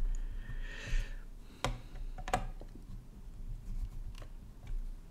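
Small screwdriver and hands working on a graphics card as its cooler screws are tightened: a brief scrape, then scattered light clicks of the tool and screws against the card, two of them sharper about one and a half and two and a half seconds in.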